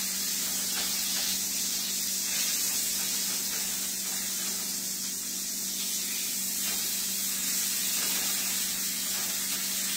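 Steady hiss of steam venting from a flip waffle maker as the waffle cooks, over a low steady hum.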